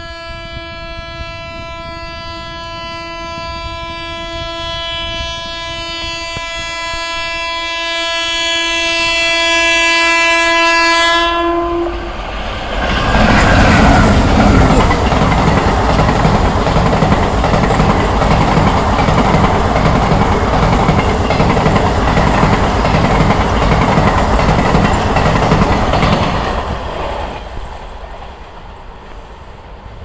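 Indian Railways express train, hauled by a WAP-1 electric and a WDP4D diesel locomotive, sounding one long steady horn that grows louder as it approaches. After about twelve seconds the horn stops and the coaches pass at speed with a loud, fast, rhythmic clickety-clack of wheels over rail joints, which fades near the end as the train recedes.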